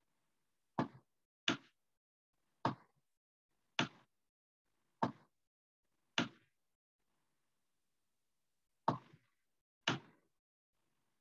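Computer mouse clicking: eight sharp clicks at uneven gaps of about one to two and a half seconds, with a longer pause before the last two.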